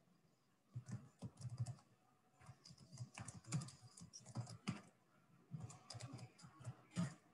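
Computer keyboard typing: faint, quick runs of key clicks with two short pauses.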